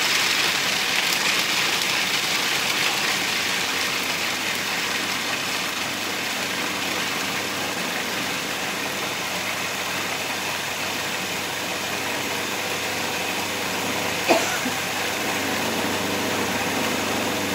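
Magimix food processor running continuously, its blade buzzing as it chops dry nuts and hemp seeds into coarse crumbs. A brief knock sounds about fourteen seconds in.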